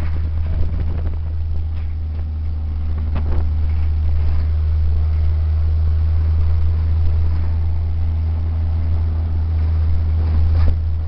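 Pickup truck driving on a dirt road, heard from the open truck bed: a steady low rumble of engine and tyres, with a few brief knocks from bumps.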